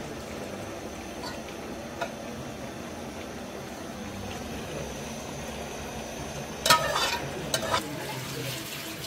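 Metal ladle scooping a wet raisin mixture out of a steel pot into a steel bowl, with a soft wet stirring sound over a steady hiss. A few sharp metal-on-metal clanks come about two-thirds of the way through.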